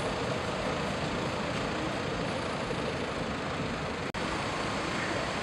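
Steady background noise with no clear tones, broken by a brief dropout about four seconds in.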